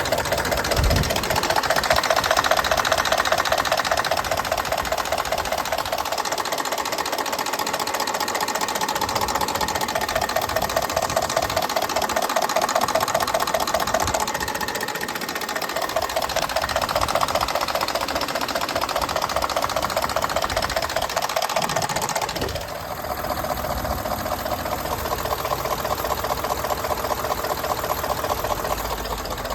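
2019 Ford F-150's 5.0-litre V8 running with a fast, steady, even knock. The knock persists despite new OEM timing components, cam phasers, actuators and solenoids, and its cause is unknown to the owner. The sound dips briefly about two-thirds of the way in.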